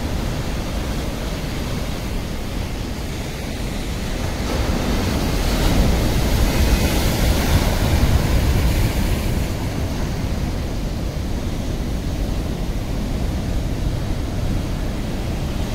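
Rough sea surf breaking and washing over a rock seawall, with wind buffeting the microphone. A wave crashes in, louder, for a few seconds around the middle.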